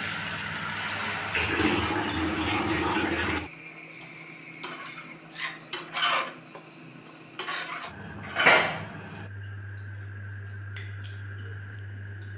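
Water poured from a bowl into a hot pan of chicken liver masala for about three and a half seconds. Then a spatula stirs, scraping and knocking against the pan several times, the loudest stroke about eight and a half seconds in. After that only a low steady hum remains.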